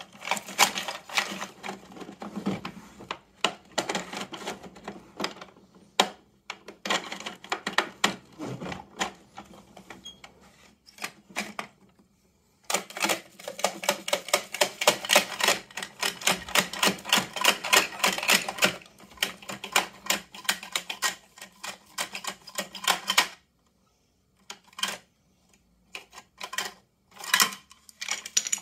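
Rapid plastic clicking from a toy garbage truck's lifting arm as its knob is turned by hand, running in two long stretches with a short break partway, then a few scattered clicks near the end.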